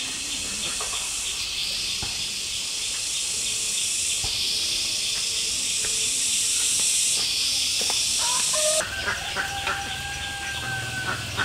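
Steady, high-pitched buzzing of an insect chorus in woodland, stepping louder and softer a few times. About nine seconds in it changes abruptly, and a long drawn-out bird call is held for about two seconds.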